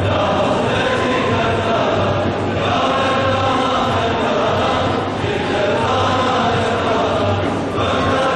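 Group of men chanting together in unison in long, sustained phrases, each about two and a half seconds long and broken by a short pause for breath.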